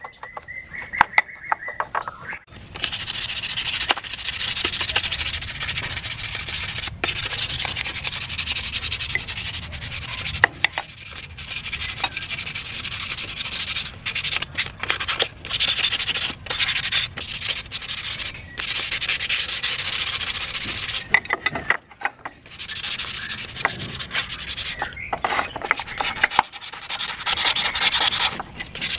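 A hand-held abrasive pad rubbed back and forth over bare cast aluminium brackets, a steady scratchy scrubbing that scuffs the metal before spray painting. The scrubbing starts after a couple of quieter seconds and stops briefly a few times.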